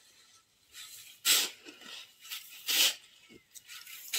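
Shovel scraping and scooping loose sand in repeated strokes, a sharp scrape about every second and a half.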